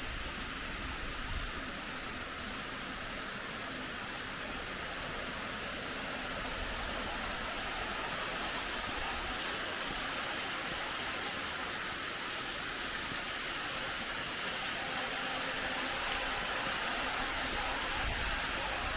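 Steady hiss of falling water from a small natural waterfall, running low in the dry season.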